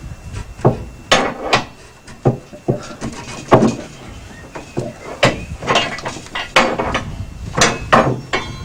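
Irregular knocks and clunks of wood and metal as a heavy home-built bandsaw is levered and shifted with a bar, about a dozen sharp strikes with the loudest about three and a half seconds in.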